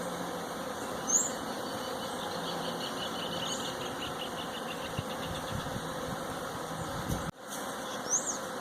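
Swarm of bees buzzing around a jabuticaba tree: a steady, motor-like hum that resembles a drone's propellers. Two short high chirps sound about a second in and near the end.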